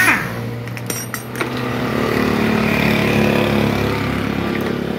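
An engine running steadily, swelling about two seconds in and easing off again. A few light metal clinks sound about a second in.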